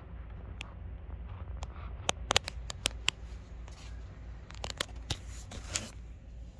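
Handling noise from a handheld camera moving through a car interior: a quick run of sharp clicks about two seconds in and a few more near the end, with light rubbing, over a steady low hum.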